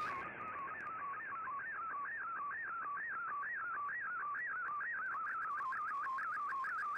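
Shortwave radio audio of an MFSK digital picture transmission: one warbling tone sliding up and down about twice a second over steady receiver hiss. The tone's pitch carries the brightness of the picture being sent.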